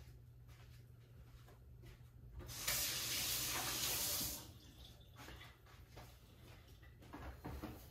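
Water running from a tap for about two seconds, starting a couple of seconds in and stopping abruptly, over a quiet kitchen hum.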